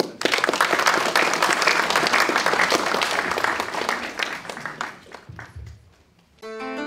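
Audience clapping, dense at first and dying away after about five seconds. Just before the end, music played on a plucked string instrument begins.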